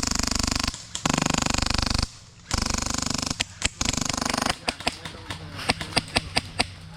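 Airsoft electric guns firing full-auto: four bursts of about a second or less, each starting and stopping abruptly, followed by a quick string of single sharp shots.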